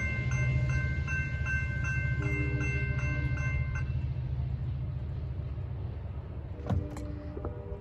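Railroad crossing signal bell dinging about three times a second as the gates rise after the train has passed, cutting off about four seconds in once the gates are up. Under it a low rumble fades away, with a few clicks near the end.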